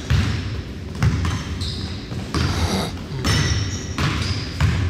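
A basketball being dribbled on a hardwood gym floor, about five heavy thumps that echo through the hall, with short squeaks of sneakers on the court.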